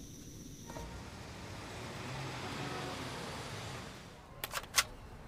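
A rush of city traffic noise that swells and fades away, then three quick sharp shots from a toy gun near the end.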